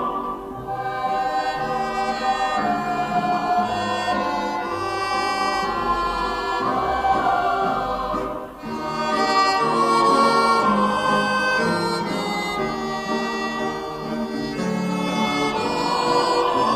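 Music with a choir singing sustained, slowly moving lines over instrumental accompaniment, dipping briefly about halfway through.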